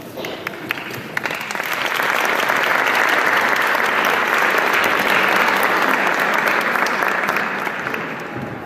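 Audience applauding: a few scattered claps at first, swelling within about two seconds to full, steady applause, then thinning out near the end.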